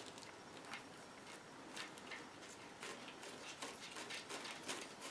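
Faint, irregular clicks and light scraping as a 1/4-inch NPT metal pipe fitting is screwed by hand into a freshly tapped thread in the cast-iron lifter valley of a Vortec 5.7 small-block engine.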